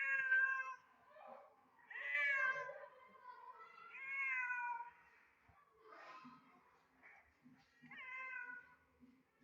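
Two domestic cats yowling at each other in a hostile standoff: about five long, wavering, drawn-out calls in turn, each lasting around a second, the loudest at the start.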